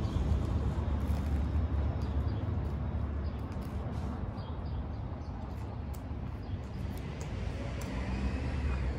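Steady low rumble of street traffic, with faint scattered clicks of chewing a sandwich.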